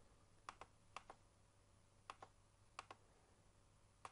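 Computer mouse button clicked five times at an unhurried, uneven pace, each click a quick double snap of press and release, over a faint steady background hum.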